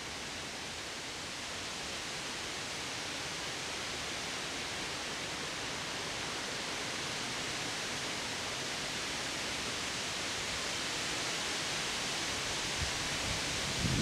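Strong windstorm gusts, around 40 mph, rushing through the leafy crowns of tall trees: a steady rustling rush that grows slightly louder. Near the end a few low thumps of wind hit the microphone.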